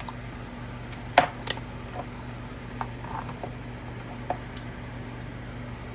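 A few scattered light clicks and taps of small tools being handled on a workbench, the sharpest about a second in, over a steady low electrical hum.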